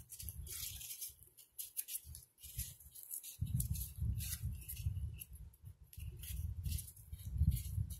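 A moulded-pulp cardboard egg carton cup being torn apart by hand: short, scattered ripping and crackling sounds. A low rumble runs beneath them and grows stronger from about three and a half seconds in.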